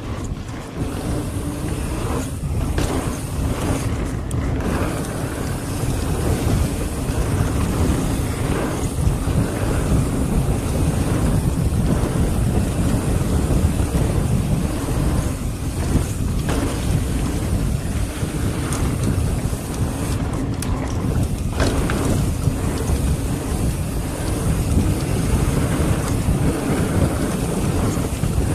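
Mountain bike rolling fast down a packed-dirt trail: a steady rumble of tyres on dirt mixed with wind on the microphone, broken by a few brief rattles of the bike over bumps.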